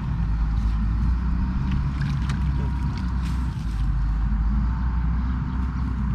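A steady low rumble of wind on the microphone, with a few faint splashes as hands grope through shallow muddy water.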